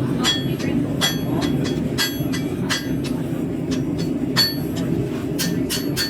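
Hand hammer striking hot high-carbon steel on an anvil, irregular blows about two or three a second, each with a bright metallic ring, over a steady low rumble.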